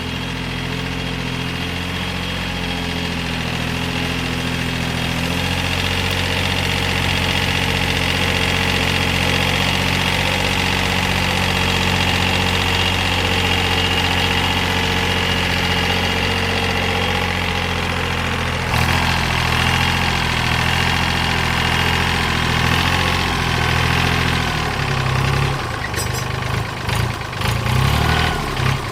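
Tractor engine running steadily. About two-thirds through, its note shifts, and near the end the sound turns uneven, rising and dipping.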